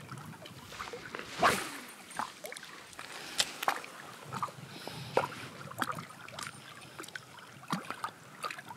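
Small lake waves lapping and splashing, with irregular sharp splashes over a steady wash of water and wind.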